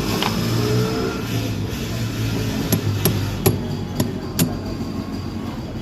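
Hammer blows on a washing machine's jammed gearbox, breaking it apart piece by piece. The strikes are sharp and come as one near the start, then five in quick succession a little past halfway.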